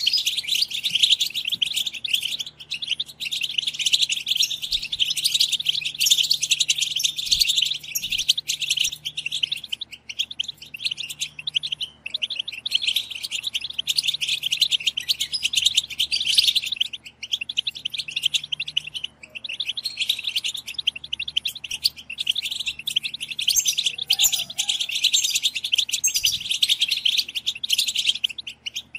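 Several European goldfinches chattering together in a dense, rapid twitter, with only short lulls. This is the goldfinch chatter ('batbata', tagged as the female's call) that keepers play to stir male goldfinches into song.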